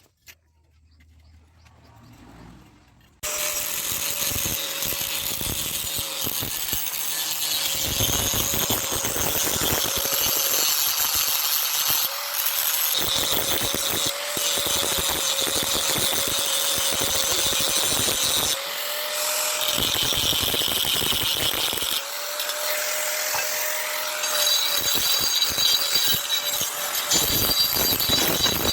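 An electric power tool runs steadily under load, starting abruptly about three seconds in. Its motor tone wavers briefly a few times.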